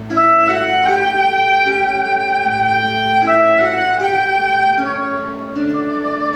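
Soprano saxophone playing a slow melody of long held notes over a guitar accompaniment; the saxophone comes in right at the start.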